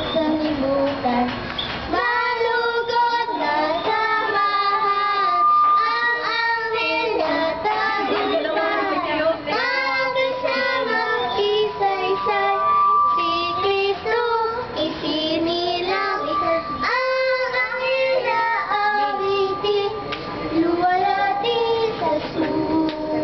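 Young children singing a song with music, the melody running on without a break and a few notes held longer.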